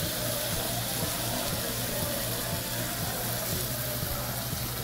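Raw ribeye steak sizzling on a gas-fired Korean barbecue grill plate, a steady hiss with a low hum underneath.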